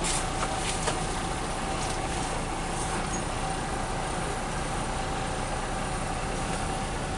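Semi-truck's diesel engine running at idle, heard from inside the cab: a steady low rumble with a faint steady whine over it.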